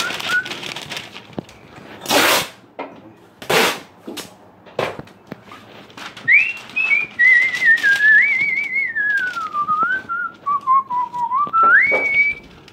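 A person whistling a wandering tune for about six seconds in the second half, the pitch stepping and sliding up and down. Earlier come two short, harsh noises about a second and a half apart.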